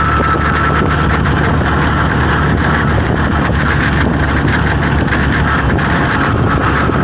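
Motorcycle-and-sidecar tricycle running steadily at road speed: the engine's drone, mixed with wind and road noise heard from inside the sidecar.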